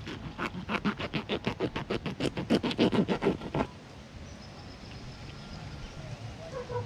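Knife scraping a small snook as it is cleaned: rapid, even scraping strokes, about seven a second, that stop after about three and a half seconds.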